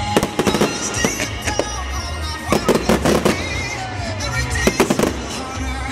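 Aerial fireworks bursting in clusters of sharp bangs and crackles, the heaviest runs about halfway through and again near the end, with music playing underneath.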